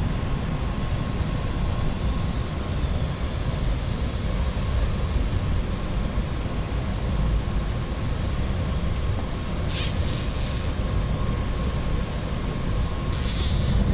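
Steady rushing roar of water pouring over a river dam, heaviest in the low rumble, with a faint regular high ticking about twice a second.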